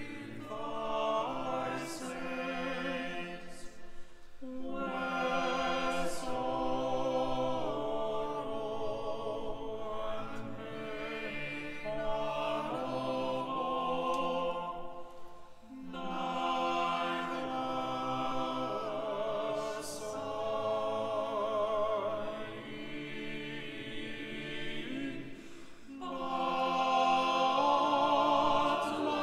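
Chapel choir singing a sung piece in long phrases, with short breaks between phrases about four, fifteen and twenty-six seconds in.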